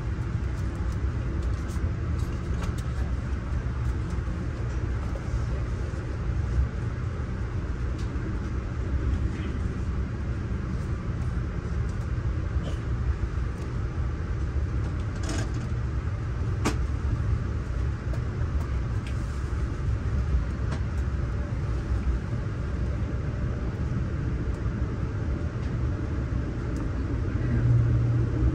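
Steady low rumble of a Budd Amfleet passenger coach rolling along at speed, heard from inside the car, with a few sharp clicks over it and a slight swell in the rumble near the end.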